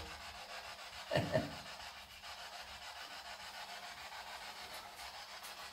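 Steady low hiss, with a short falling voice-like sound about a second in.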